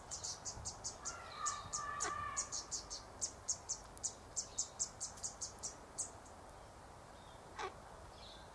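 Faint, high-pitched chirping repeated about four times a second, stopping about six seconds in. A short pitched call sounds about a second in, and a single chirp comes near the end.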